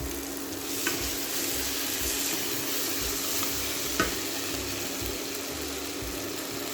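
Chopped onion, garlic, peppers and tomato with paprika, chilli and pepper powders and saffron sizzling steadily in oil in a paella pan while being stirred, with two light utensil knocks about a second and four seconds in.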